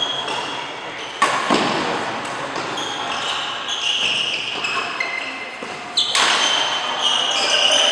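Badminton doubles rally: rackets strike the shuttlecock with sharp cracks, a loud one about a second in and another near six seconds, each echoing in the hall. Between the hits, court shoes squeak on the mat in short high squeals.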